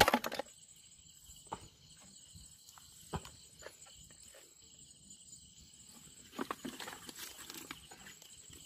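Faint scattered clicks and soft knocks of crab hunters moving through mangrove mud and roots, with a louder knock at the very start and a cluster of clicks near the end, over a faint steady high-pitched hum.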